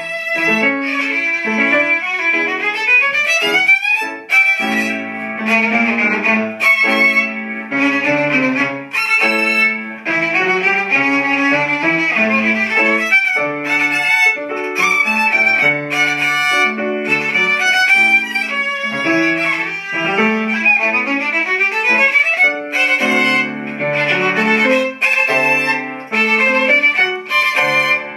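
Solo violin playing a fast, lively passage with quick rising runs, accompanied by an upright piano.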